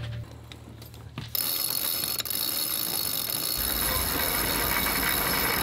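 Self-tailing sheet winch ratcheting: the drum spins and the pawls click in a rapid, continuous run as the jib sheet is hauled around it by hand. The ratcheting sets in about a second in.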